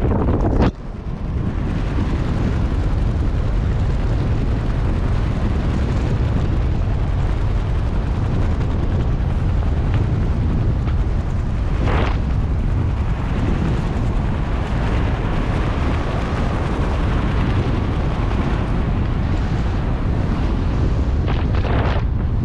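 Wind rushing over a helmet camera's microphone as a BASE jumper flies under an open parachute canopy, a steady loud rumble with a few brief louder gusts, one about half a second in, one midway and one near the end.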